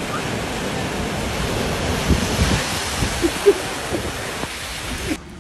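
Floodwater rushing and splashing as a car drives through a flooded street: a loud, steady wash of water noise that drops suddenly to a much quieter sound near the end.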